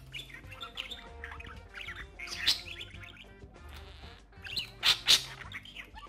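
Budgie chirping and chattering in short rising and falling notes over soft background music, with two loud sharp chirps, one about halfway through and one near the end.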